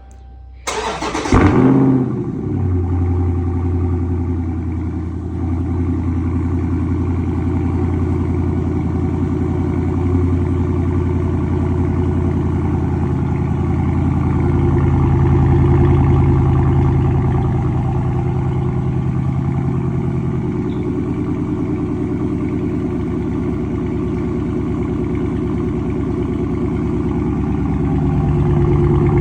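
Dodge Charger 392's 6.4-litre HEMI V8 on its stock exhaust, starting up about a second in with a loud flare of revs, then settling into a steady idle.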